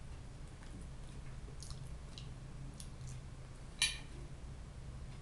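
Close-up chewing and soft mouth clicks of a person eating herring and fried potatoes, over a steady low hum. A little before four seconds in comes a single sharp click, a fork against the plate.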